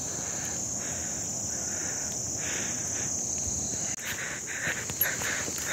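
A steady high-pitched insect chorus, with a lower insect call that comes and goes in repeated pulses of about half a second. From about four seconds in, footsteps on the trail add short scuffs and clicks.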